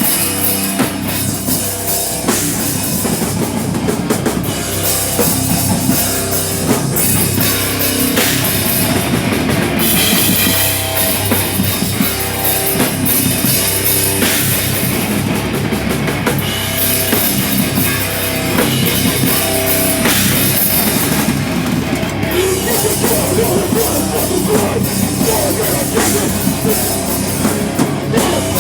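A rock band playing live and loud: a full drum kit with cymbals, electric guitars and bass, heavy and driving, with no singing.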